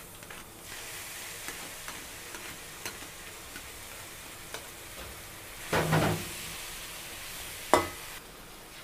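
Boiled noodles sizzling as they are tipped into a hot nonstick wok of fried egg and stirred with a metal slotted spoon, with light scrapes and ticks of the spoon on the pan. A louder clatter comes about six seconds in, and a sharp knock of the spoon against the pan near the end.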